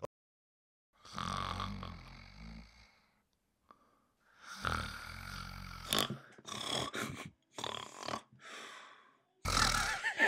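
A person snoring: several long, rattling snores with pauses between them.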